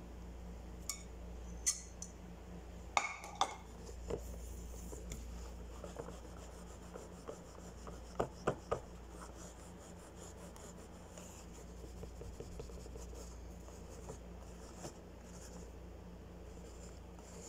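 Faint clinks and knocks of kitchenware being handled: a few in the first seconds and a quick run of three a little past the middle, over a low steady hum.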